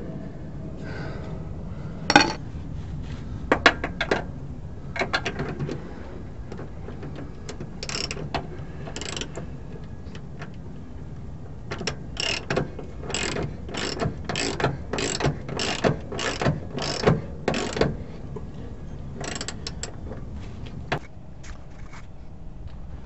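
Socket ratchet wrench clicking as a shock absorber mounting bolt is turned, in scattered strokes at first, then a steady run of about two strokes a second.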